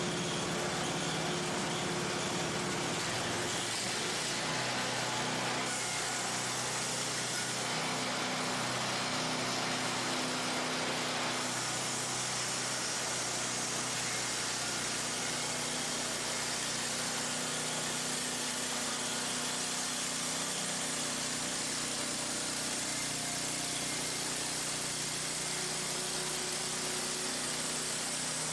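Harbor Freight portable band sawmill running steadily, its gas engine driving the band blade through a reclaimed barn beam as the saw head is pushed along the track.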